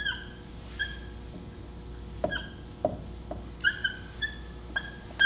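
Dry-erase marker squeaking on a whiteboard as Arabic letters are written: a string of short, high squeaks with a few lower, downward-sliding squeaks among them.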